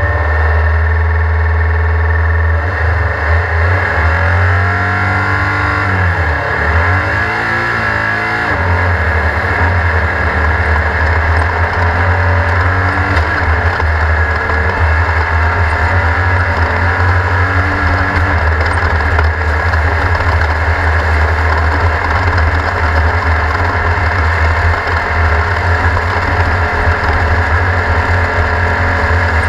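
Race car engine revving, its pitch rising and falling several times a few seconds in, then running hard and steady.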